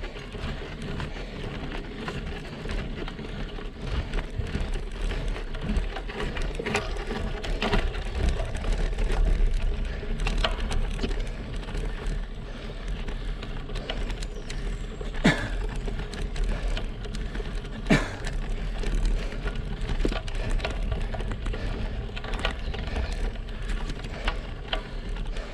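Road bike rolling over rough, leaf-strewn asphalt: a steady crackling tyre noise, with a low wind rumble on the microphone. Two sharp clicks come past the middle, a few seconds apart.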